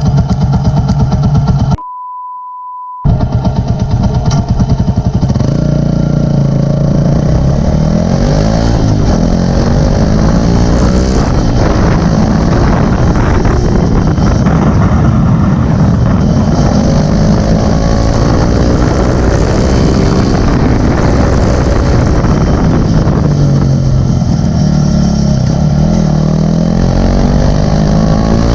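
Yamaha Sniper 150's single-cylinder four-stroke engine breathing through a Yamaha R3 canister muffler, idling and then revved up and down over and over. About two seconds in, the engine sound drops out for about a second under a steady high beep tone.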